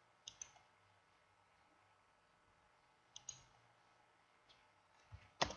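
Computer mouse clicks over near silence: two quick double clicks about three seconds apart, then a louder, deeper click or knock just before the end.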